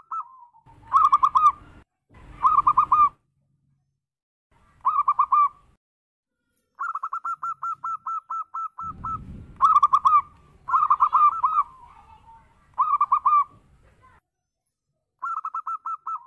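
Zebra dove (perkutut) cooing: short phrases of rapid, quavering coo notes repeated every second or two, some louder than others. About halfway through comes one long run of even notes. A low rumbling noise lies under several of the phrases.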